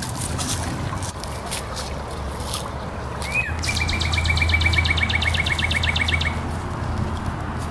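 A bird's rapid trill: evenly spaced notes, about seven a second, starting about three seconds in and lasting about three seconds, over a low steady rumble. Faint rustles of dry leaf litter come before it.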